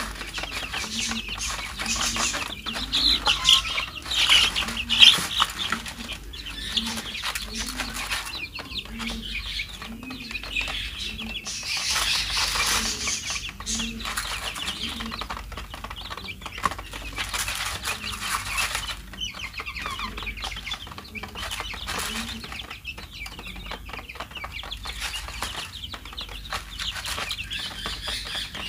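A flock of young chicks cheeping continuously as they feed, with many small high calls overlapping. The calls grow louder around four seconds in and again around twelve seconds.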